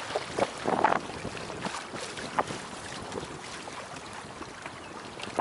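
Water splashing and sloshing along the hull of a small sailboat under sail, with a louder splash about a second in, then a steadier, quieter wash of water and wind.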